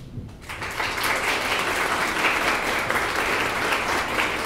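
Audience applauding. It starts about half a second in, fills out within the next half second and then holds steady.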